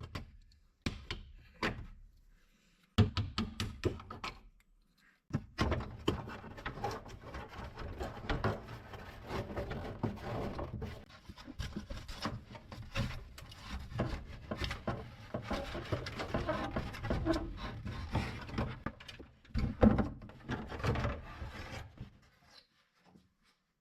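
Handling noises from car body parts being worked loose and pulled off: irregular knocks and clicks, then a long stretch of rubbing and scraping, broken by brief moments of silence.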